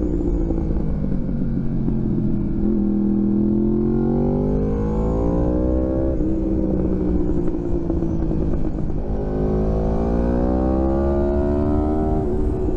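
2016 Yamaha R1's crossplane inline-four running through Graves carbon slip-on exhausts under way. The engine note falls at first, then climbs twice under acceleration, each climb ending in a sudden drop in pitch as it shifts up a gear.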